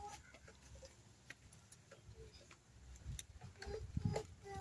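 A kitchen knife scraping scales off a whole fish: faint, irregular clicks and ticks.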